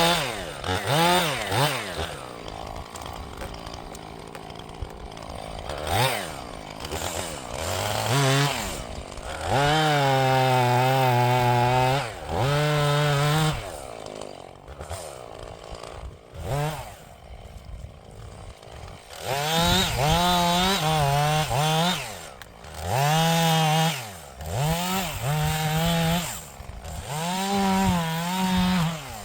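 Chainsaw engine revved to full throttle again and again in bursts of one to two seconds, its pitch falling back to idle between bursts.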